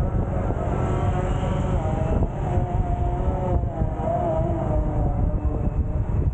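Motorcycle on the move: a steady low rumble from wind on the rider's microphone, with the engine's hum wavering in pitch above it.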